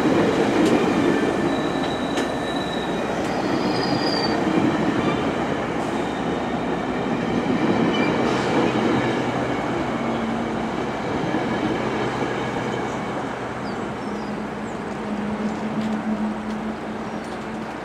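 GO Transit bilevel commuter train passing close by: a steady rumble of wheels on the rails, with a brief high wheel squeal a few seconds in. From about halfway a steady low hum is heard as another GO train approaches.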